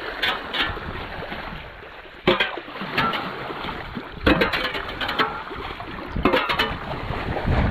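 Water swirling down a whirlpool in a hole cut through ice, rushing steadily with sharp gurgling splashes every second or so.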